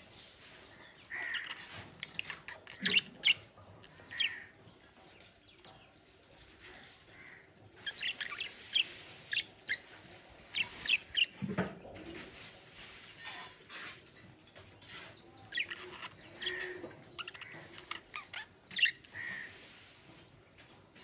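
Pet budgerigars chirping and chattering in short, scattered bursts of high chirps, with brief pauses between.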